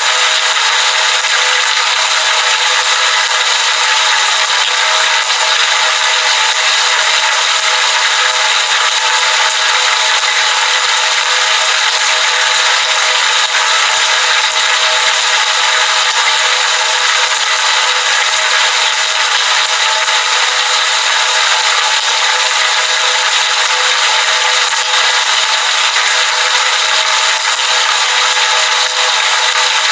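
Heavy rain pouring steadily, an even hiss with no break or change in level.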